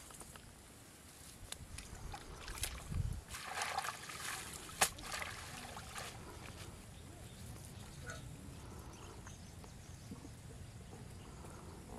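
Shallow pond water sloshing and dripping as a cloth is swished and lifted in it, in a short spell a few seconds in, with a few sharp clicks, the loudest about five seconds in.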